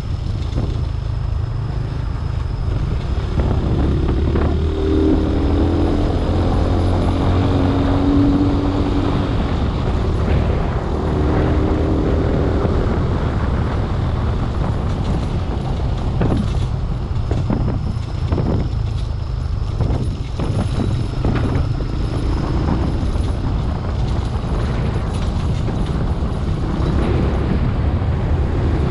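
Vehicle driving along a rough laterite dirt track: a steady engine and road rumble, with scattered knocks from the bumpy surface.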